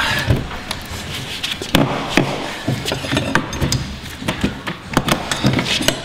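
A metal pry tool levering and scraping against a high-security front door handle and the door face, making irregular sharp metallic knocks and scrapes.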